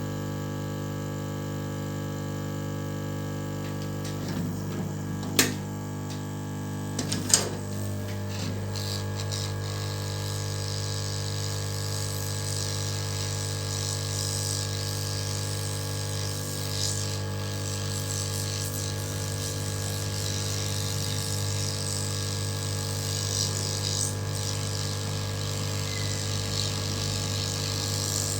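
A hot-air gun blowing on heat-shrink sleeving to shrink it over a repaired USB-C cable joint: a steady hum, two sharp clicks about five and seven seconds in, and a hiss of air that grows from about ten seconds in.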